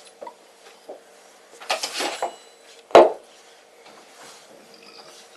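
Glass beer bottle handled while the beer is poured: a brief noisy clatter, then about three seconds in a single solid knock as the bottle is set down on a wooden surface.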